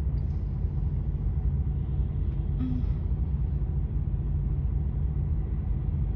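Heavy truck's diesel engine idling with a steady low rumble, heard from inside the cab.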